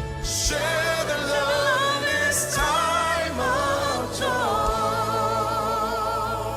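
Gospel singing with a band backing: sung lines with a wide vibrato, settling into one long held note about two-thirds of the way through.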